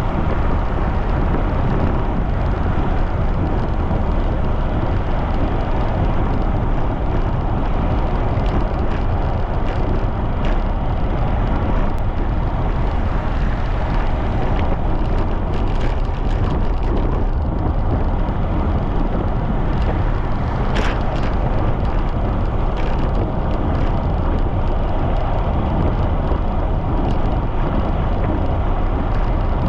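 Steady wind rushing over the microphone of a camera riding along on a bicycle at speed, with a few faint clicks about a third of the way in and again past the middle.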